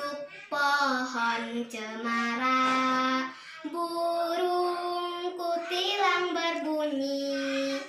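A child singing a song with musical accompaniment, in long held notes: a lower held phrase, a short break, then a slightly higher one.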